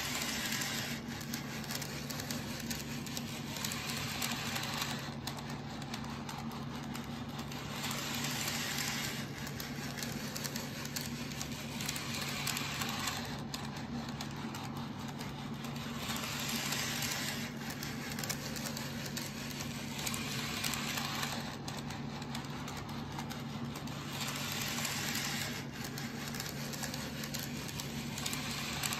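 N-gauge model of a Hakone Tozan Railway Moha 1 electric car running round a very tight loop of super-mini-curve track: a steady motor hum with a rattle of wheels on rail that swells about every four seconds. Its running on these curves is jerky.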